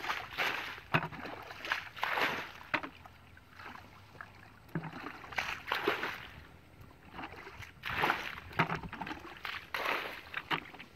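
Shallow muddy water sloshing and splashing in irregular swishes about a second apart, as water and mud are stirred at the edge of a ditch.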